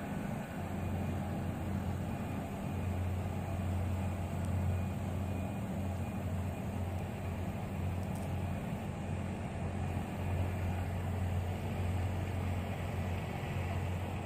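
A steady low engine hum, like a motor idling, with a faint hiss of background noise above it.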